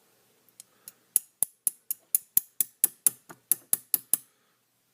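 Small metal lock body tapped repeatedly on a hard surface: about fourteen sharp clicks at roughly four a second, knocking at a pin spring stuck in its chamber.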